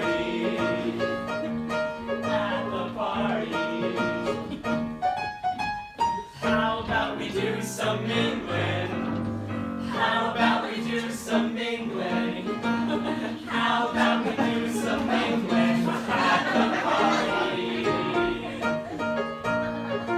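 Live musical number: several voices singing together over instrumental accompaniment, with a brief drop about six seconds in.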